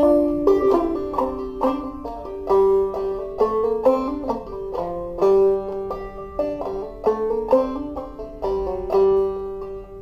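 Banjo played clawhammer style in sawmill tuning: a rhythmic run of plucked melody notes and brushed strokes, unaccompanied.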